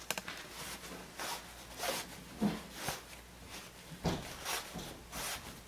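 Cotton curtain fabric rustling in irregular swishes as the rod pocket is gathered onto a curtain rod, with a soft knock about four seconds in.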